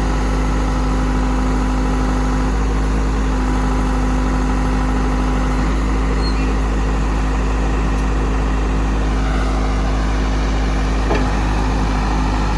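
Backhoe engine running steadily at an even speed, with a strong low hum.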